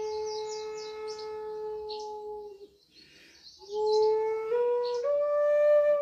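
Native American flute holding one long low note, breaking off for a breath just before halfway, then coming back in and stepping up in pitch twice. Short high bird chirps sound above it now and then.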